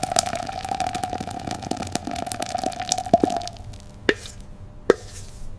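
Cartoon sound effects: a steady hum with dense crackling that stops about three and a half seconds in, followed by two separate plops.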